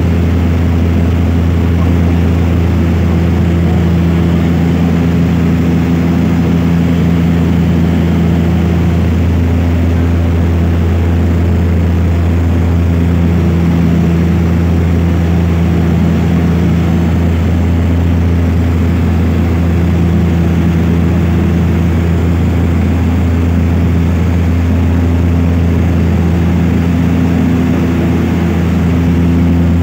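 Propeller airplane's engines and propellers heard from inside the cabin in cruise: a loud, steady drone with a deep hum and several steady tones above it that slowly swell and fade.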